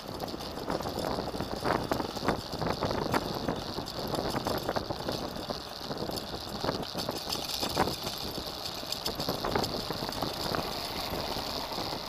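Solar-roofed recumbent bike rolling along a paved road: steady road and wind noise, with frequent sharp clicks and rattles from the frame and canopy and a steady high whine underneath.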